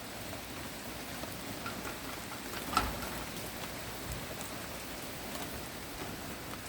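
Steady patter of rain falling, with one faint tap a little under three seconds in.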